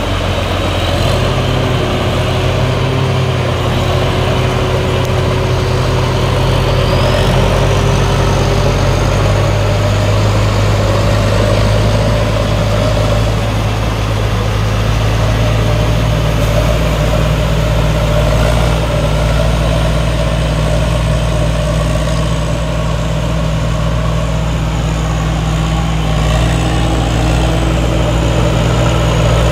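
Rice combine harvester's engine and threshing machinery running steadily under load as it drives through and cuts standing rice. The engine note shifts slightly about a second in and again around nine seconds in, and a faint high whine rises about seven seconds in.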